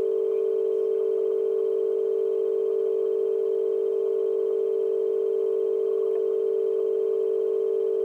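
A loud, steady electronic tone at one unchanging pitch, like a dial tone, running without a break.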